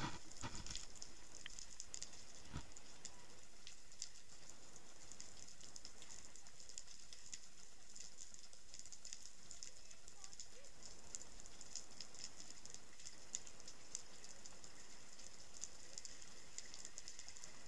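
Underwater ambient crackle: a steady, dense patter of tiny clicks, with a few knocks in the first second and one more a couple of seconds in.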